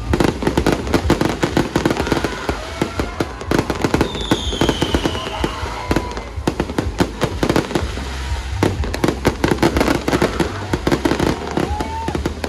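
Fireworks display going off, a dense run of rapid bangs and crackles with a falling whistle about four seconds in. Music with a heavy bass plays underneath.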